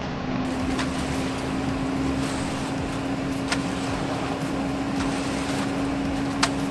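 Concrete mixer lorry's engine running steadily under an even rumble, with a steady hum and three sharp clicks spread through it.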